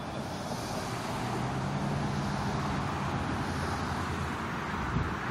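Steady vehicle noise with a low engine hum.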